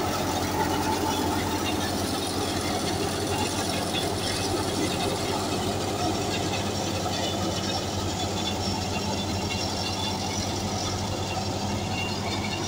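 Tractor-driven wheat thresher with blower running steadily under load as straw is fed in: a dense, even noise over a steady low engine hum.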